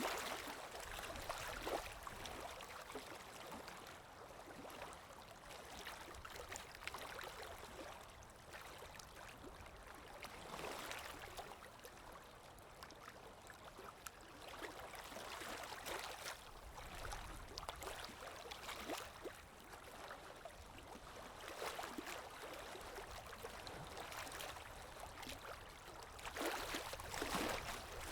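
Calm waves washing in: a soft hiss of water that swells and falls back every several seconds, with the strongest surge near the end.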